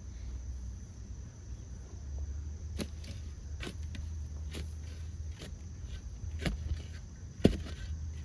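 A series of six sharp knocks, roughly one a second, starting about a third of the way in, the last one the loudest, over a steady low rumble.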